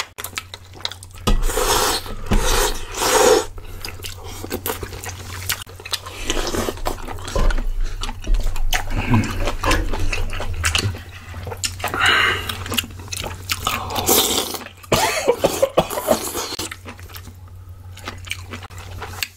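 Close-up eating sounds: chewing on mouthfuls of kimchi stew and bibimbap, mixed with many short clicks and scrapes of wooden spoons scooping from the stew pan and metal plate.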